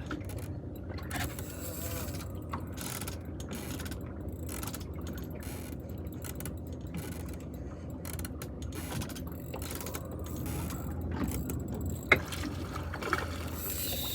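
Fishing reel being wound in against a hooked fish, its gears clicking and turning over a steady low rumble. A single sharp knock comes near the end.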